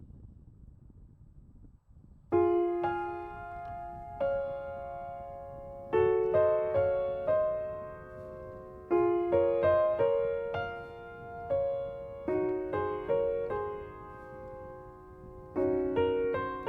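Background piano music: a slow melody of struck notes that ring and fade, entering about two seconds in after a faint low rumble.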